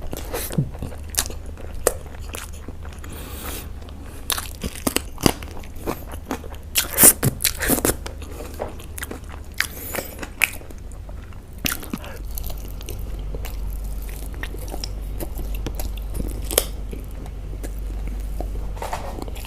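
Close-miked eating: irregular biting and chewing of chicken leg curry and rice, with sharp clicks and smacks that come thickly at first and more sparsely after about twelve seconds, when a steady low hum comes in.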